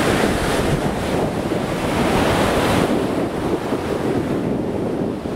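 Ocean surf breaking and washing up a sandy, stony beach, with wind noise on the microphone; the wash is louder over the first three seconds.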